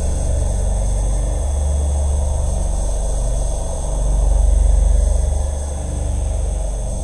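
Dark sound-design ambience drone: a deep low rumble that swells about two-thirds of the way through, under a hissing midrange layer and thin steady high tones.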